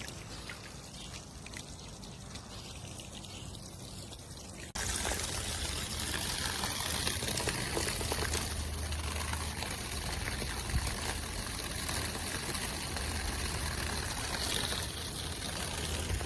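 Water pouring and trickling from the discharge hose of a submersible utility pump. About five seconds in, the sound cuts abruptly to a louder rush of water with a steady low hum underneath.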